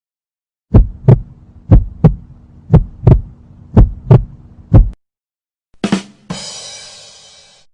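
Heartbeat sound effect: deep paired lub-dub thumps about once a second, four beats in all, over a low hum. It stops near the middle, and after a pause comes a click and then a hissing sound with many overtones that fades away.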